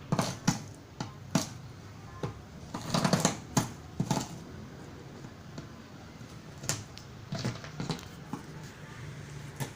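Irregular light clicks and knocks of objects being handled during fibreglass work, with a brief scraping cluster about three seconds in.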